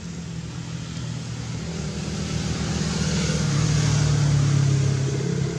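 A motor vehicle driving past, its low engine hum growing louder to a peak about four seconds in and then easing off slightly.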